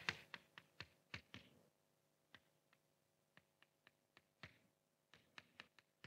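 Chalk clicking and tapping on a blackboard as an equation is written: faint, irregular sharp taps, several close together in the first second and a half, then sparser, with the strongest about four and a half seconds in.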